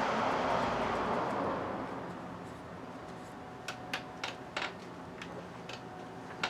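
A hiss that fades away over the first two seconds, then a scattering of sharp little clicks and taps from small carburetor parts and tools being handled.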